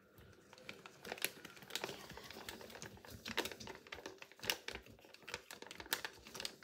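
Irregular scratching and clicking as coloured material is scraped out of a small palette into a plastic bag, with the thin plastic bag crinkling.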